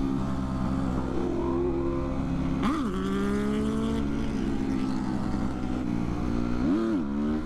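Motorcycle engine running while riding, with two short rev blips: one about a third of the way in and one near the end, with the engine note settling at a new pitch around each.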